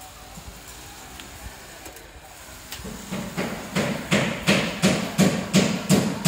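Hammer blows on a construction site, a steady series of sharp strikes about three a second that starts about three seconds in and grows louder.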